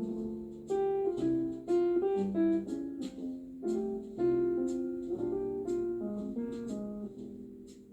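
Instrumental background music: a gentle melody of single struck notes and chords, piano-like.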